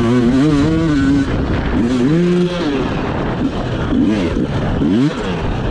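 Enduro motorcycle engine revving up and easing off repeatedly as the throttle is worked, with a few quick blips a little after halfway.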